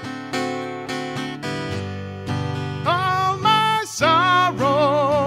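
Acoustic guitar being strummed in a steady rhythm. From about three seconds in, a man's voice sings long, wavering notes over it.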